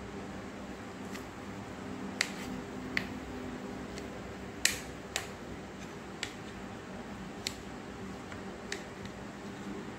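Kitchen knife clicking against a plate while slicing a rolled egg omelette: about eight short, sharp ticks at uneven intervals, over a low steady background hum.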